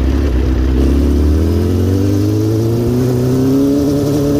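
Kawasaki four-cylinder 400 cc motorcycle engine powering a quad under acceleration, its pitch rising steadily from about a second in and levelling off near the end.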